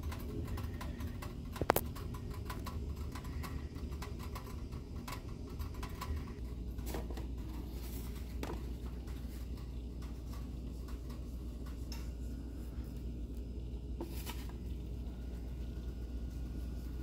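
Light clicks and knocks of kitchen utensils over a steady low hum, with one sharp knock about two seconds in.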